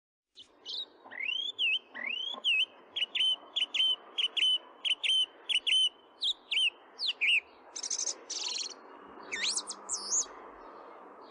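A bird singing: a run of short, hooked whistled notes repeated about two to three times a second, then a fast trill and a few sweeping whistles near the end, over faint background noise.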